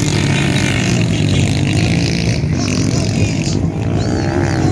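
Motocross dirt bikes racing on a dirt track, their engines revving, the pitch rising and falling as riders work the throttle.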